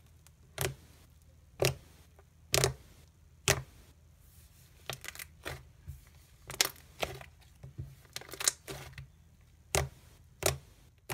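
Fluffy white slime made with glue, shaving cream and foaming hand soap being pressed and squished by hand, giving sharp pops and crackles about once a second, with a quicker run of smaller pops in the middle.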